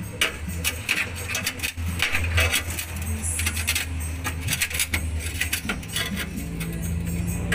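Steel screwdriver tip scraping and tapping against a car's sheet-metal cab floor, a quick, irregular run of metallic clicks and scrapes.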